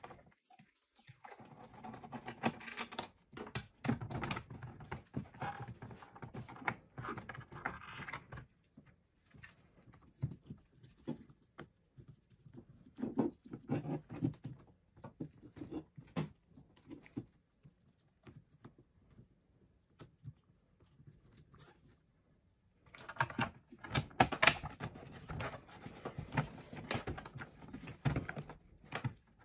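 Nitrile-gloved hands handling a plastic UPS battery cartridge and its lead-acid cells while refitting the cover: rustling, scraping and small plastic clicks and knocks. Busiest near the start and again near the end, with only scattered clicks in between.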